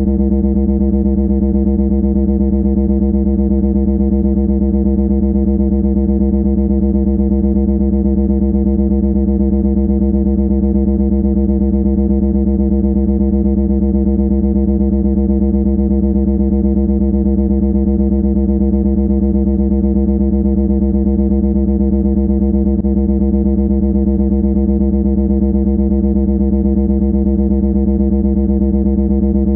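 A loud, steady buzzing tone held at one fixed pitch, harsh and unchanging throughout.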